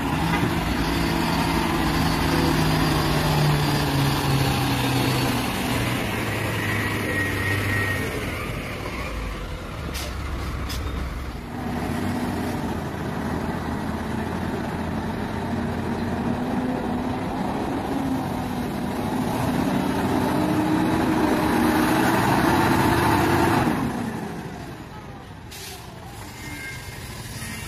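Heavy diesel truck engines labouring under load through deep mud, the revs rising and falling. A couple of short sharp sounds come about ten seconds in, and the engine note climbs before easing off near the end.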